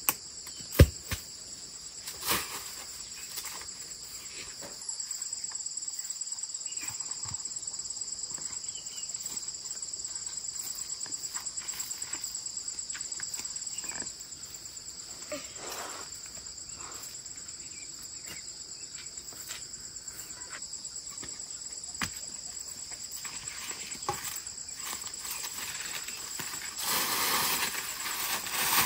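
Insects keep up a steady, high-pitched chorus of trilling. Sharp knocks and clicks come now and then, the loudest about a second in, and there is a louder rustling stretch near the end.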